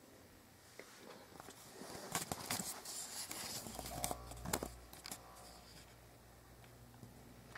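Rustling and scraping handling noise with several sharp clicks as the handheld camera is moved. A steady low hum sets in about four seconds in.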